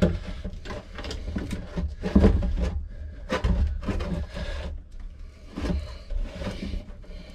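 Handling noise as a small plastic 12 V pump and its hoses and wires are shifted and pressed into place in a fiberglass compartment: irregular knocks, rubs and scrapes, the heaviest about two and three and a half seconds in.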